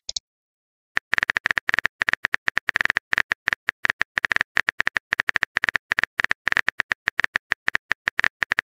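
A keyboard typing sound effect: a fast, uneven run of short clicks, one per keystroke, starting about a second in.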